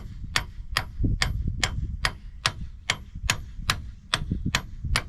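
Hammer blows driving the new master pin into an excavator's track, steel ringing on steel in a steady run of about two and a half strikes a second as the pin starts to go in.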